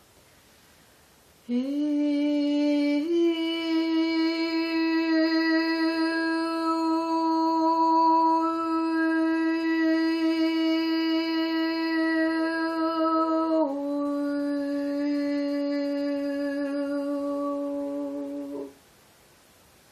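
A woman's voice singing long, sustained wordless tones: it slides up into the first note, steps up a little, holds that note for about ten seconds, drops slightly and holds again for about five seconds, wavering a little near the end, then stops abruptly.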